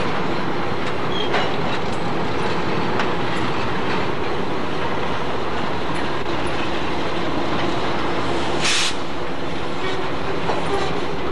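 Indiana Harbor Belt end-cab diesel switcher locomotives running slowly by with a steady engine drone and the click of wheels over rail joints. A short hiss sounds about nine seconds in.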